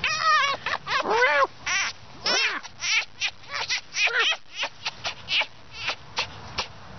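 Fox vocalising: a quick series of short, high-pitched whining calls, about three a second, some rising and falling in pitch.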